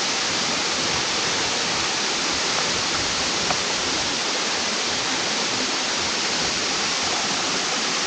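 Waterfall rushing: a steady, even roar of falling water that does not change over the whole stretch.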